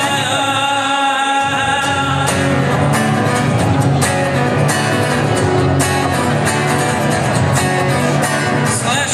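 Music: a song with singing over a band, with a steady percussion beat coming in about two seconds in.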